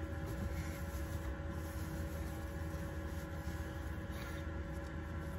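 Steady low mechanical hum of machinery running in the van, with a couple of constant tones held through it and no change in speed.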